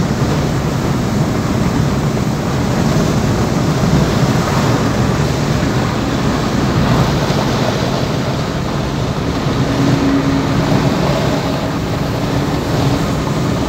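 Steady road and wind noise inside the cabin of a car moving at highway speed.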